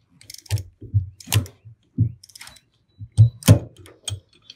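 Irregular metallic clicks and knocks of a ratchet-head torque wrench and a combination wrench snugging a half-inch bolt on a PTO shaft slip clutch. The loudest knocks come about one and a half seconds in and again around three and a half seconds in.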